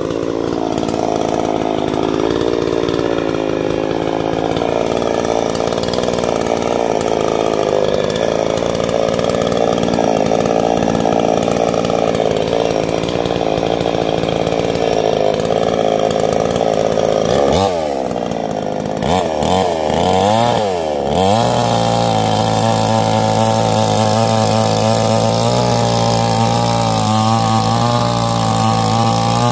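Petrol chainsaw running steadily, revved up and down a few times about 18 seconds in, then held at a steady higher pitch as it cuts down through a log.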